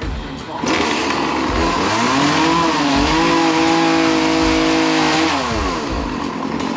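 Gas chainsaw revved up to full throttle, its engine pitch rising, held high and steady for a few seconds, then dropping back as the throttle is released.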